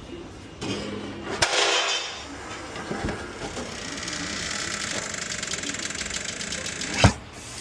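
Tyre changer working on a car wheel: a click and a short loud hiss of air, then the machine running with a steady whirr and fast ticking, ending in a sharp knock about seven seconds in.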